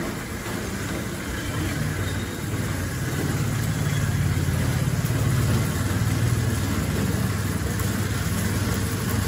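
Homemade Wall-E-style tracked robot driving along, its drive motors and rubber tracks giving a steady low hum that grows louder from about two and a half seconds in as it comes closer.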